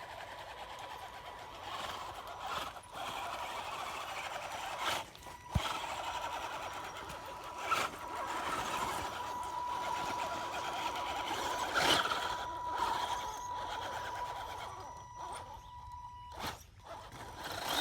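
Axial SCX10 RC rock crawler climbing a steep hill: its small electric motor and gearbox whine steadily, growing louder partway through and cutting off near the end. Occasional knocks come from the truck bumping over the ground.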